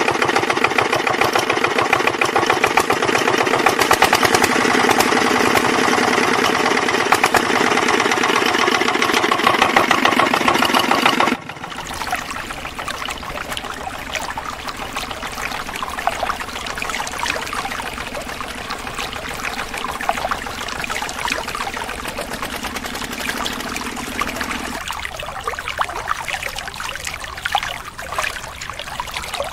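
Small motor of a miniature model engine running with a loud, fast rattling buzz, driving a string belt to a miniature water pump. About eleven seconds in, this gives way to water pouring from the pump's spouts into a small concrete channel, with a fainter hum under it until near the end, then only water trickling.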